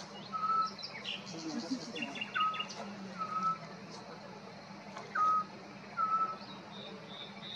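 Eurasian scops owl calling: short, soft whistled notes held at one pitch, coming in pairs that repeat about every two and a half seconds.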